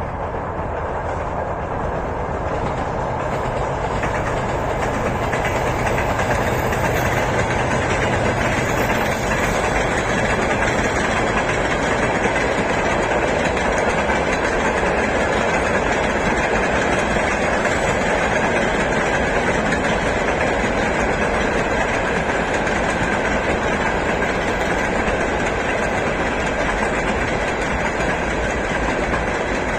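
Train running along the rails, a steady loud rumble of wheels and carriages that builds over the first few seconds and then holds.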